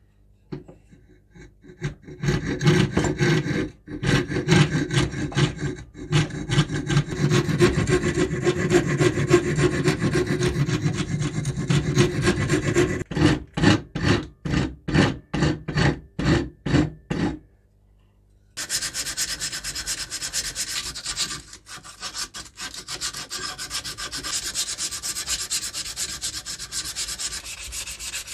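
Steel flat file scraping over a wooden handle blank clamped in a vise, in steady back-and-forth strokes that become separate strokes about two a second before stopping. After a short pause, sandpaper rubbing along the wooden handle by hand, a finer, hissier sound.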